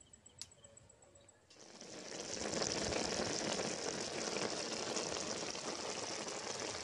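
Curry simmering in a wide metal pan: a steady bubbling that starts about a second and a half in, after near silence.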